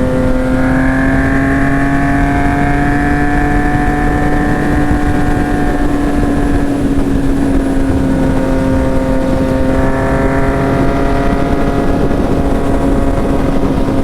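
Yamaha MT-09's three-cylinder engine running at steady revs under way, the pitch rising slightly in the first few seconds and then easing back a little, with wind noise underneath.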